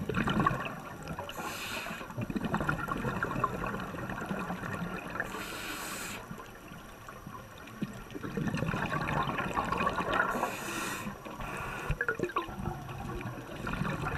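Scuba divers' breathing heard underwater: irregular bubbling of exhaled air from the regulators, with a short hiss about every four and a half seconds.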